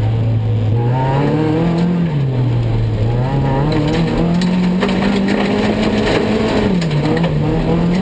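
Race car engine heard from inside the cockpit, its note climbing and dropping several times as the driver accelerates and lifts on the loose dirt track. A few sharp ticks come about five seconds in.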